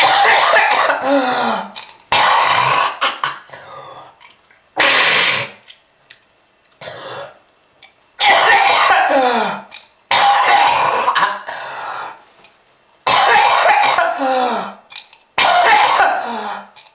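A smoker's hacking cough: about eight loud fits of coughing and throat clearing, one every couple of seconds, each trailing off in a falling pitch.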